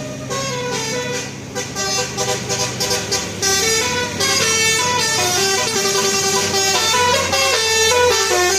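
A bus's telolet basuri musical horn playing a quick melody of stepped notes, several tones sounding together, getting louder about three seconds in.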